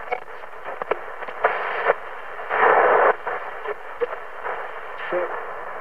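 Realistic DX-160 shortwave receiver's speaker hissing with static as it is tuned, with scattered crackles, two louder rushes of noise and brief snatches of tone from passing signals. The audio is thin and tinny with no bass, typical of its communications-style sound.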